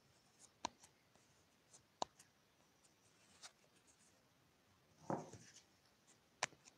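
Faint, scattered sharp clicks and taps over near-silent room tone, with a brief rustling scrape about five seconds in.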